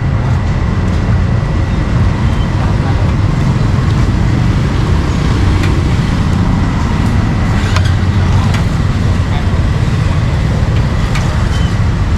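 Busy street ambience: a steady traffic rumble with indistinct voices and a few scattered sharp clicks.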